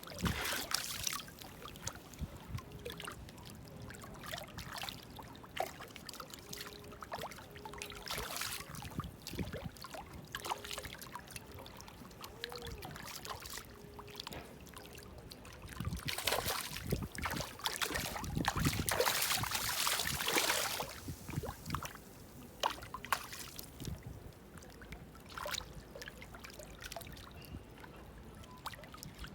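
Seawater trickling and splashing, with scattered knocks and handling noises. It grows louder for a few seconds past the middle.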